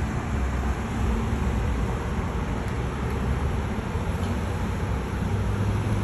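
Steady road traffic from cars passing on a busy multi-lane street below: a constant low hum of engines and tyres.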